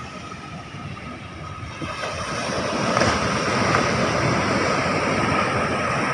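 Surf on the shore mixed with wind noise, a rushing hiss with a low rumble, swelling louder about two to three seconds in.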